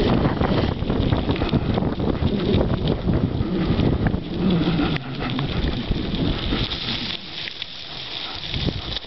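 Wind buffeting the microphone, with the rattle of a mountain bike riding over a rough trail. The noise eases off about halfway through.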